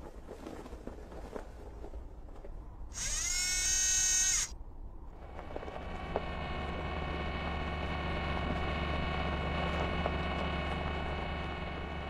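Electric motor sound effects for an animated Mars rover. A loud, high servo whine starts about three seconds in, rising in pitch as it starts, and stops a second and a half later. From about six seconds on, a steady motor hum with a buzzing tone.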